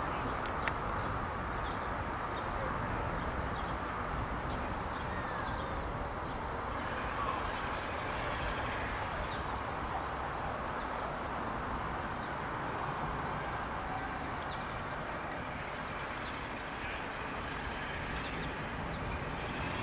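Steady outdoor background noise with a low rumble, and faint short high chirps now and then.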